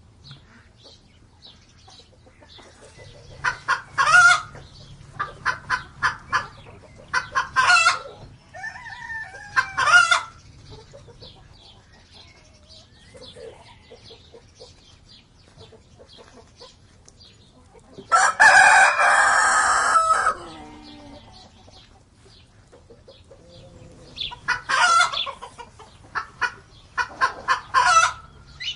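A flock of chickens: hens clucking in short clusters of quick calls every few seconds, and a rooster crowing once, a loud call of about two seconds, around two-thirds of the way through.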